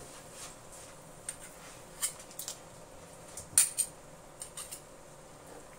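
A metal spoon knocking and scraping against a wok as peanut butter is scraped off it into the sauce: a string of short, sharp clinks, the loudest about three and a half seconds in.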